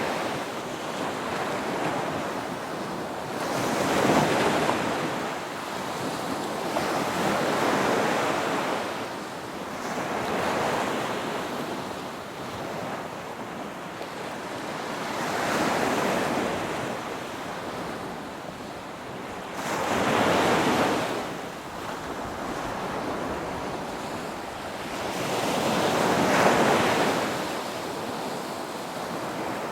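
Ocean surf: a continuous wash of waves, swelling louder about six times, every four to six seconds, as each wave breaks and recedes.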